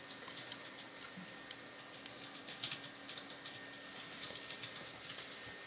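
Light, irregular clicks and taps from a 1950s Zündapp sewing machine being handled at its controls and handwheel, over a faint steady hum.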